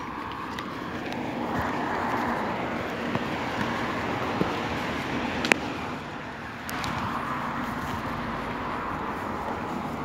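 Cars passing on a road, one after another: tyre and engine noise swells from about a second in and fades, then rises again about two-thirds of the way through. A single sharp click about halfway.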